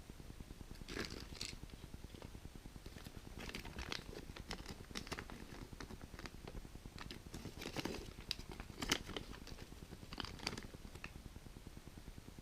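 Plastic and foil wrappers of Kinder Joy eggs being handled and torn open, with irregular crinkling and small sharp clicks in short clusters; the loudest click comes about nine seconds in.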